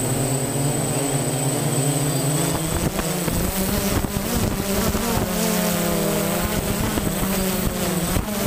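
DJI Phantom quadcopter's motors and propellers buzzing in flight, picked up by the GoPro riding on the drone; the pitch of the hum wavers and shifts as the motors adjust speed, with a few sharp clicks.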